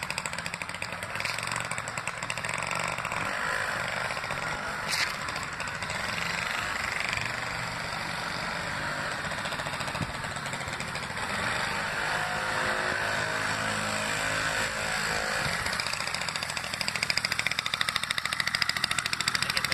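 A Honda Express moped's small two-stroke engine running as it is ridden along the street. Near the end it runs close by at low speed with an even, rapid pulsing, and there is a single sharp click about five seconds in.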